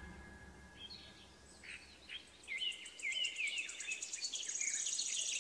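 Forest ambience of several small birds chirping and twittering, busier from about halfway in, with a rapid high trill of quick ticks above them. A last piano note dies away in the first second or so.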